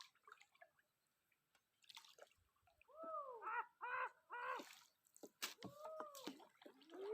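Four faint calls, each rising then falling in pitch, starting about three seconds in, with the last and longest near the end; a few soft drips and clicks come before them.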